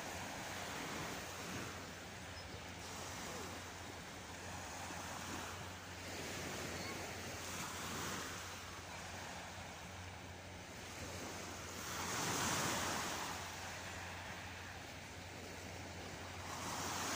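Small waves breaking and washing up a sandy shore, swelling and fading every few seconds; the loudest wave comes about twelve seconds in, and another rises near the end.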